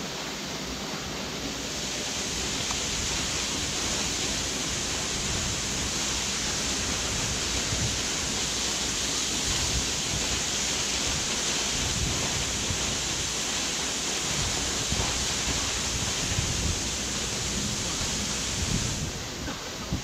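Waterfall plunging into a rock pool: a steady, even rush of falling water that grows a little louder shortly after the start and eases back near the end.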